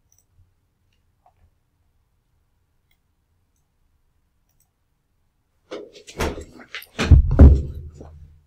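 Several seconds of near silence, then a cluster of knocks and thumps about six seconds in, the loudest and deepest a second later: a person getting up from a desk and moving about in a small room.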